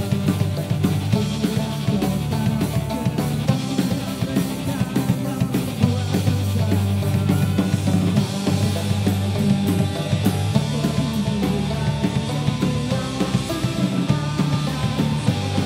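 Celtic punk rock band playing live: a steady drum kit beat under bass and acoustic guitar, with a man singing into the microphone.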